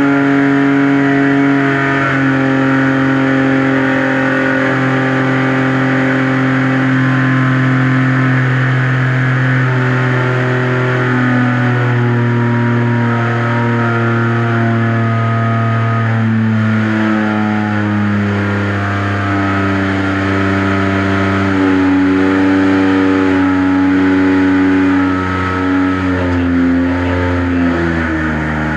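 Noble M400's twin-turbocharged 3.0-litre Ford Duratec V6 running hard on an engine dyno at about three-quarter throttle under heavy load in a stress test. It is a loud, steady engine note whose pitch drifts slowly and shifts in a few small steps as the engine speed changes.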